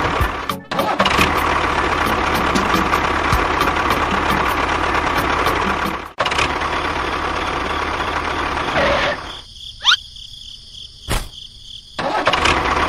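Small electric motor of a homemade miniature tractor running with a steady, dense whir, broken by two abrupt cuts. About nine seconds in it gives way for a few seconds to a much quieter sound with a short rising whistle and a click, then the whir returns.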